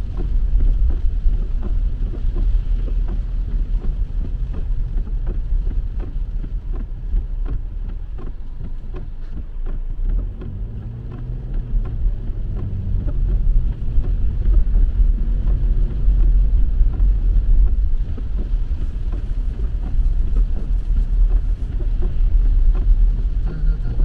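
Car interior driving noise on a rain-soaked road: a steady low rumble with tyre hiss from the wet surface and rain ticking on the windshield as the wipers sweep. It eases off for a few seconds in the middle, then picks up again.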